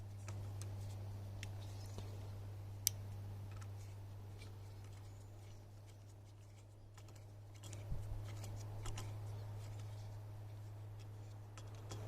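Faint, scattered small clicks and ticks of a hex key working the clamp-band bolt of a bike bell on the handlebar, with one sharper click about three seconds in and a short cluster near eight seconds. A steady low hum sits underneath.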